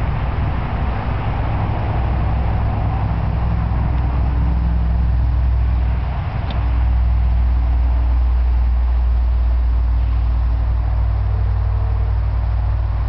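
Steady low hum of a running motor, growing a little louder about halfway through.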